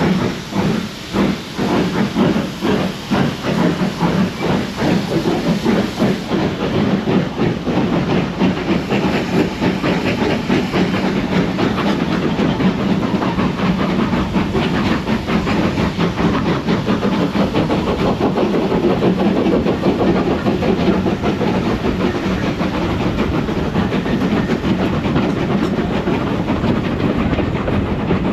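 Steam locomotive exhaust beats with steam hiss as the engine works a train; the beats start slower and quicken as it gathers speed.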